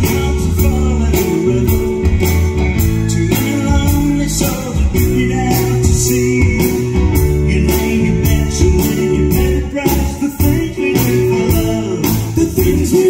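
A live rock band playing a song, with a man singing lead over electric bass, electric guitar, keyboards and drums keeping a steady beat.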